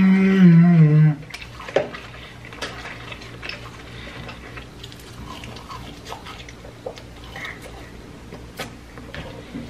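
A man's voice sings a held note that stops about a second in. Then come quieter eating sounds: chewing with scattered small clicks and taps of food and packaging.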